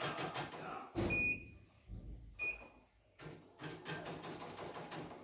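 A CNY home embroidery machine stitching with a rapid, even clatter, which stops about a second in. Two short beeps from its control panel come during the pause, about a second and two and a half seconds in, and the stitching clatter then starts again about three seconds in.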